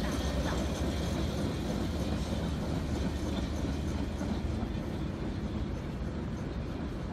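Articulated electric street tram running along its rails, a steady rumble that slowly fades as it pulls away.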